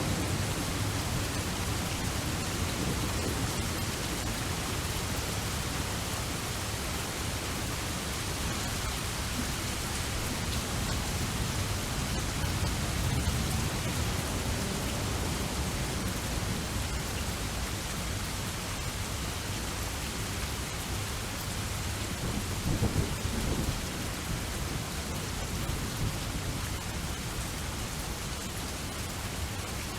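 Steady rain falling as a continuous hiss, with low thunder rumbling underneath; a roll swells near the start and another about 23 seconds in.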